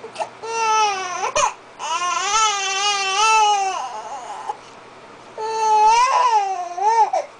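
Young infant crying: three long, wavering cries with short pauses for breath between, the middle one the longest.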